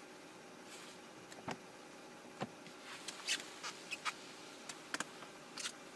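A string of small clicks, knocks and scuffs from a person shifting on the leather rear seat and opening the rear door of a 2019 Kia K900 to climb out.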